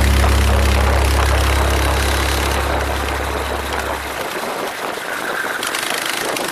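Racing kart at speed heard from its onboard camera: engine and wind noise with a steady low drone that cuts off about four seconds in.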